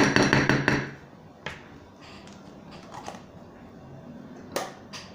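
A metal spoon scraping a dish for about a second, then a few sharp taps and clinks against it as a spoonful of margarine goes into shampoo for slime.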